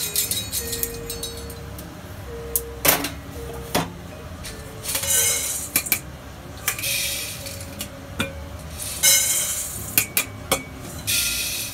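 Freshly roasted coffee beans rattling against a metal bowl and pan in several short spells, with sharp metallic clinks in between, as the hot beans are stirred and handled to cool.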